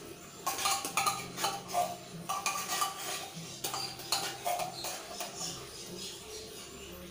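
A metal spoon scraping and clinking inside a tin can of corned beef as the meat is scooped out into a pot, in quick, irregular scrapes and taps.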